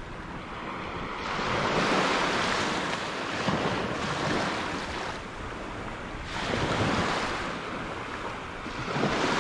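Small surf waves washing up onto a sandy beach, the rush of water swelling and fading four times, roughly every two to three seconds.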